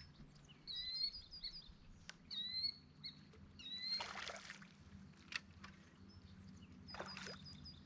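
A songbird singing short bouts of quick repeated chirps, four times, over a faint steady low hum, with two brief noisy rushes, about four and seven seconds in.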